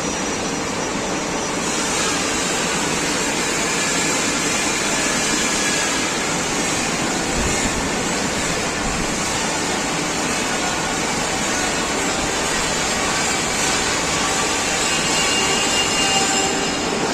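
Stick welding arc burning steadily: a dense, even sizzling noise that doesn't let up.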